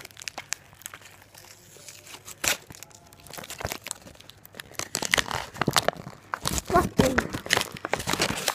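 Sheets of paper crinkling and rustling as a handmade paper card pack is unwrapped by hand. The crackling gets busier and louder about halfway through.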